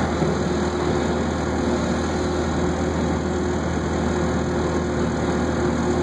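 Propane engine of a Nilfisk Advance Captor 4800 sweeper-scrubber running steadily with its fuel service valve closed, burning off the propane left in the line before it shuts down.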